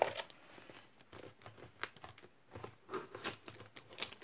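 Plastic mailer wrapping on a parcel crinkling and crackling as it is handled and cut open with scissors, in short irregular crackles and clicks.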